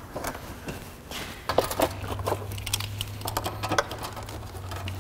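Irregular clicks and knocks of a plastic air box housing being seated and a socket wrench turning its hold-down bolt, over a steady low hum that comes in about a second and a half in.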